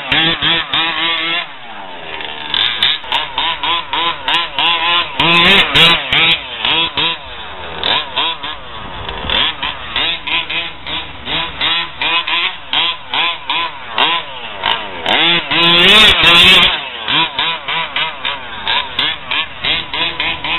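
HPI Baja 5T 1/5-scale RC truck's gas two-stroke engine revving up and down over and over as it is driven hard, its raspy pitch rising and falling with short throttle bursts. It is loudest a little past three quarters of the way through.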